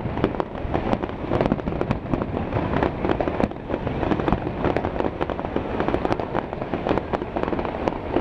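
Fireworks going off in a dense, continuous barrage of many overlapping bangs and crackles, with no pause.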